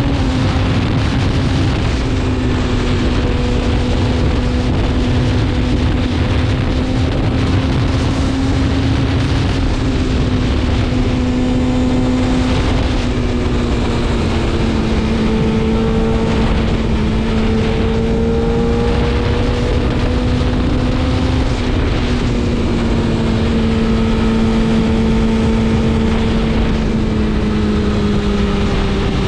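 BMW S1000RR inline-four engine running steadily at a cruise, its pitch easing slightly lower through the stretch, with wind rushing past the bike.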